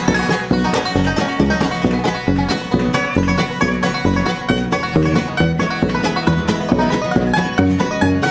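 Live bluegrass band playing an instrumental passage: banjo, fiddle, acoustic guitar and upright bass together, the picked notes running over a steady beat from the bass.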